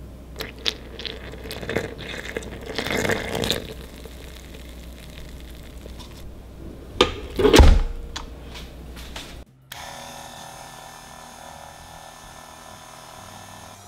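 Handling sounds at a glass stand-mixer bowl as milk is poured into the flour: scattered clicks and knocks, then a loud, heavy thump. A little past two-thirds of the way in, the stand mixer's motor starts and runs steadily, turning its dough hook through the flour.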